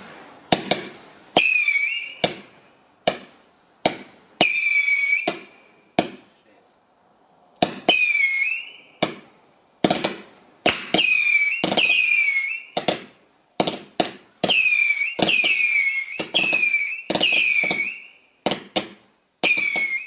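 A 100-shot consumer firework cake firing a barrage: sharp launch bangs about once a second, many followed by a shrill whistle lasting under a second that dips slightly in pitch before holding. There is a short lull about six seconds in, then the shots come faster.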